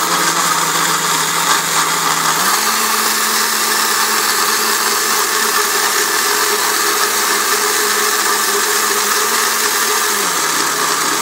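Electric mixer grinder (mixie) running, blending mango pieces with milk into a milkshake: a steady, loud motor whine whose pitch steps up about two and a half seconds in and drops back near the end.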